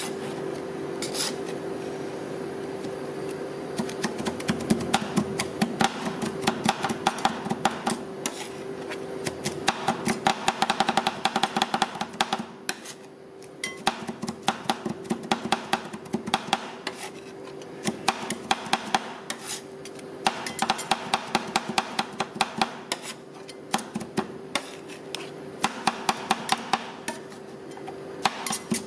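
Two metal spatulas chopping sticky rice and egg on a stainless-steel ice-cream-roll cold plate: rapid metal-on-metal tapping in runs of a few seconds, with brief pauses between. A steady low hum runs underneath.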